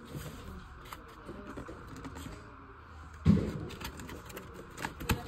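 Cardboard box of a silicone popcorn maker being handled: scattered light taps and clicks of fingers on the carton, with one louder bump a little past three seconds in.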